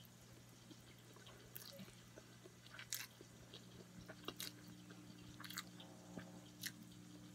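Faint chewing and slurping of spaghetti, with scattered small wet mouth clicks.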